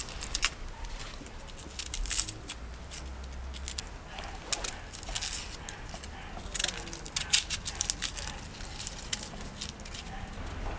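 An onion being peeled with a small knife: its dry papery skin crackles and tears in quick, irregular snaps that come in clusters.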